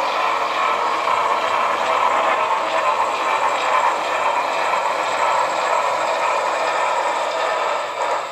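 HO-scale model freight train running along the layout track: a steady rolling rattle of wheels and cars on the rails.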